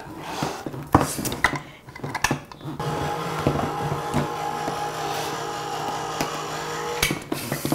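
Countertop electric can opener's motor running steadily as it turns a can, cutting off abruptly near the end. Clicks and knocks of cans being handled come in the first few seconds.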